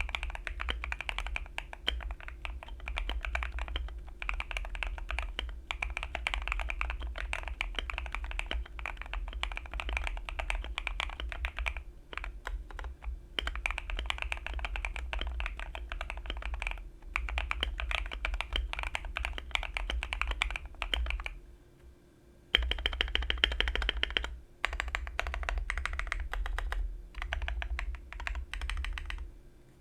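Keychron Q2 aluminium keyboard with lubed and filmed Quartz v2 switches, Akko ASA-profile keycaps, and PE foam and tape mods, typed on in fast, steady runs of keystrokes. The runs are broken by short pauses, with one longer pause a little past two-thirds through followed by an especially dense, loud burst of typing.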